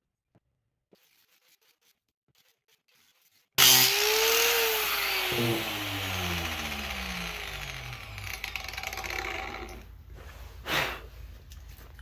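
Near silence, then about three and a half seconds in an angle grinder comes in loud and coasts down, its whine falling steadily in pitch as the disc slows after cutting the copper coil of a microwave oven transformer. A single knock near the end.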